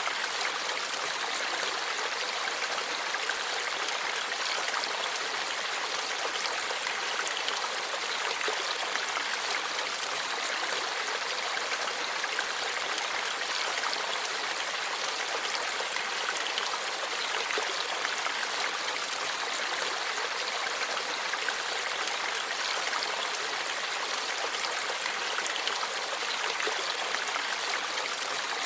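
Shallow forest stream flowing steadily over rocks, an even babbling rush of water.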